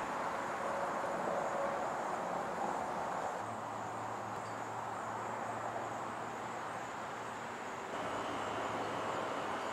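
Steady outdoor ambient noise. A low, even hum joins it about three and a half seconds in, and the sound shifts slightly about eight seconds in.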